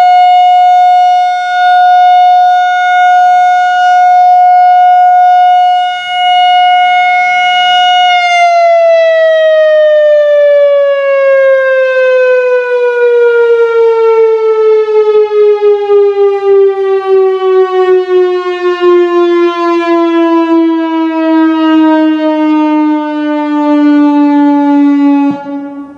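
Whelen WPS-4004 electronic outdoor warning siren on its steady Alert tone. About eight seconds in it begins its wind-down, a long smooth slide downward in pitch lasting some seventeen seconds, and it cuts off suddenly just before the end.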